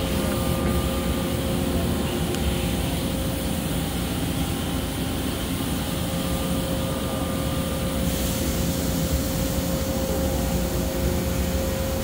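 CNC machine running its spindle warm-up: a steady mechanical hum with a constant whine, and a high hiss that changes about eight seconds in.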